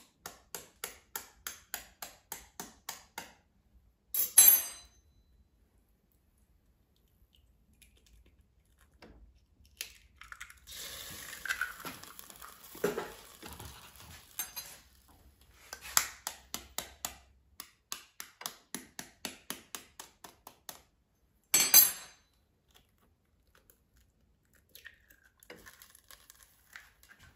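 A table knife tapping an eggshell in a quick run of light taps, about four a second, then a sharp crack as the shell breaks. This happens twice, once for each egg, with some rustling in between.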